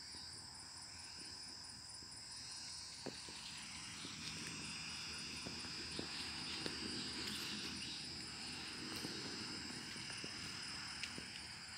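Steady high-pitched chorus of insects in the fields, a continuous even trill, with a few faint clicks here and there.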